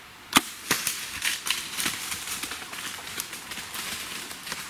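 A single sharp crack about a third of a second in, the bow shot at a whitetail doe. It is followed by irregular crunching and crackling of the deer bounding off through dry leaves and brush, fading away.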